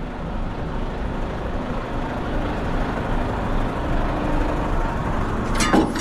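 Steady rumble of a truck engine idling nearby. Near the end come a few sharp metal clanks as the trailer's landing-gear crank handle is taken down from its holder.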